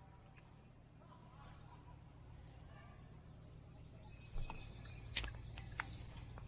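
Faint birds chirping, with a low steady background hum; a handful of sharp clicks or knocks in the second half.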